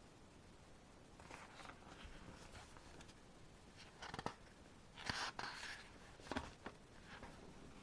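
Glossy album photobook pages being turned by hand: soft paper rustles with a few sharper flicks and taps, loudest a little past the middle.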